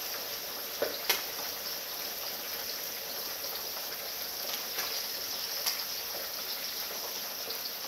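Whole turkey deep-frying in a pot of hot oil: a steady sizzling hiss with a couple of sharp pops.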